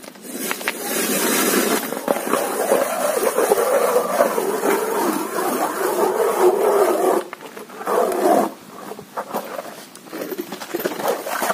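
Hand ice auger cranked round, its blades grinding and scraping through the ice in one continuous rasp for about seven seconds, then a brief pause and a few shorter scrapes.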